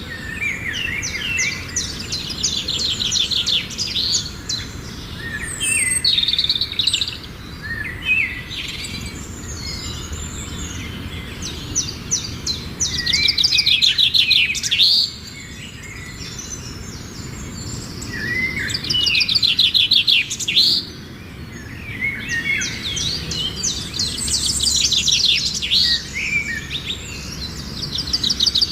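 Songbirds singing: phrases of rapid trills and chirps come every few seconds, with short pauses between them, over a steady low background noise.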